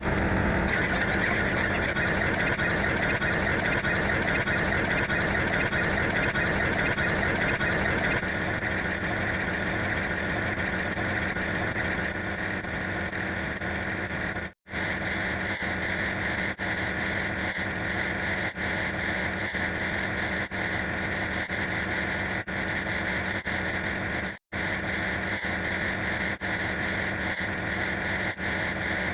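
Steady engine-like running sound, cut off completely for a split second twice, with faint clicks about every two seconds.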